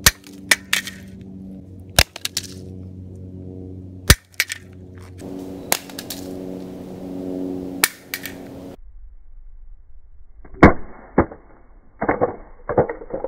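ETS translucent polymer Glock magazines, loaded and empty, dropped again and again onto the ground, each landing a sharp clack or clatter, with the cartridges rattling in the loaded ones. A music bed plays under the first part.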